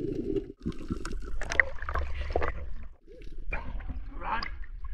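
A dog whining and barking in short stretches, broken off abruptly about half a second and three seconds in.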